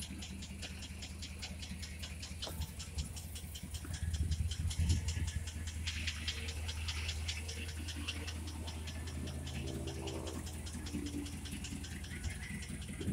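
1968 Chevrolet C10 pickup's engine idling steadily, with a fast, even ticking over its low hum.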